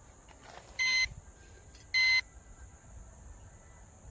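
Two short electronic beeps about a second apart from the bait boat's remote control, which is searching for the boat's signal.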